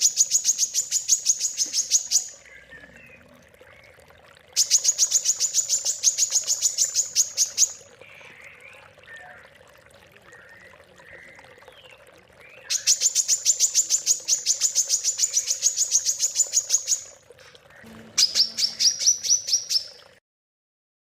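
A caged songbird sings four fast, high-pitched trilling bursts of a few seconds each, with softer chirps between them; the last burst is slightly lower in pitch. This is a masteran recording, used to teach competition songbirds their song. A faint steady hum runs beneath, and the sound stops about a second before the end.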